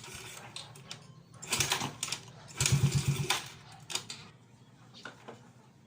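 Yamaha Mio scooter engine being cranked in two short tries, a second or less each, with a rapid pulsing turnover that does not catch. It is hard starting, which the owner blames on a sunken, leaking valve.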